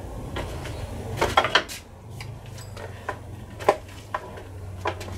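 Timber battens being handled and put down, knocking against each other: a string of sharp wooden clacks, some in a quick cluster a little over a second in, over a steady low hum.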